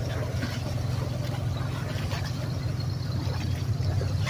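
Airboat's engine and propeller running with a steady low drone.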